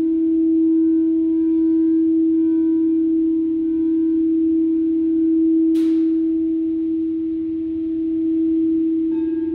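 Singing bowl sounding one steady low tone with fainter overtones, swelling and fading slowly. A bright tap rings out about six seconds in, and a second, higher tone joins near the end.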